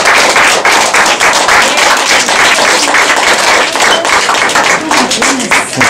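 Audience applauding: a loud, sustained patter of many hands clapping.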